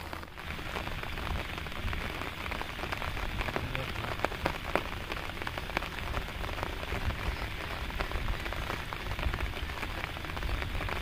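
Steady rain falling on the flooded rice-field water, a dense hiss full of small drop hits.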